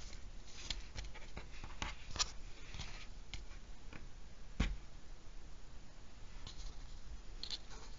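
Soft rustling and scraping of macramé cord and a thin wire filler being handled on a foam board, with scattered light clicks and one sharper click about halfway through.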